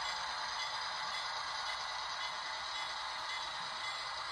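HO-scale EMD SW7 model locomotive and its freight cars running slowly along the track: a steady whir of the motor and wheels rolling on the rails.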